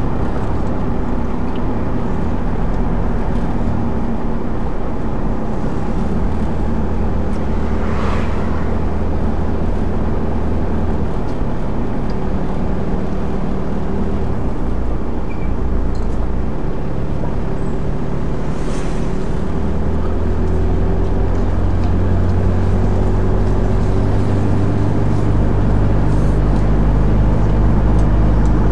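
Car engine and road noise heard from inside a moving car: a steady low drone whose pitch shifts a few times as the car changes speed, with two brief swishes along the way.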